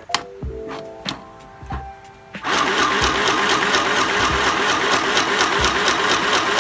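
Mini sewing machine's small electric motor starting about two and a half seconds in and then running fast and steady, the needle stitching through fabric in a rapid, even clatter. A sharp click comes just before the start.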